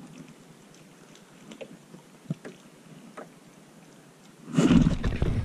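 Small waves lapping against a boat's hull, with faint scattered ticks. About four and a half seconds in, a sudden loud rushing rumble starts and carries on.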